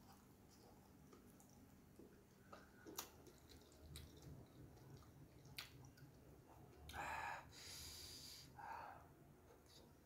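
Quiet eating by hand, mostly near silence with a few faint clicks. Two short breaths come about seven and nine seconds in.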